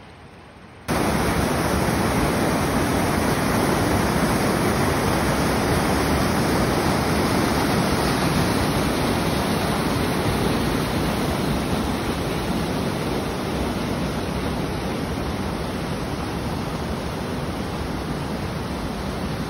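Steady rush of whitewater rapids at a river falls, heard close. It comes in abruptly about a second in, after a faint wash.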